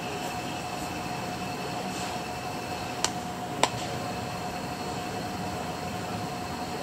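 Kollmorgen N6M4 motor running slowly on a test stand, giving a steady electrical hum and whine. Two sharp clicks come about three seconds in, roughly half a second apart.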